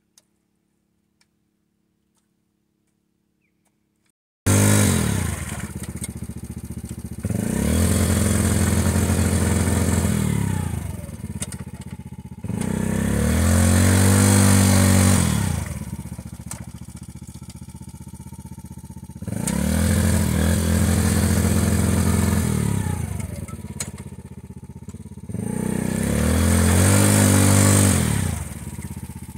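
Yamaha Grizzly 90 kids' ATV's small single-cylinder four-stroke engine, revved hard four times while the quad is bogged in a mud hole, each rev rising for about three seconds and dropping back to idle in between. For about the first four seconds there is near silence with a few faint clicks, then the engine sound comes in suddenly.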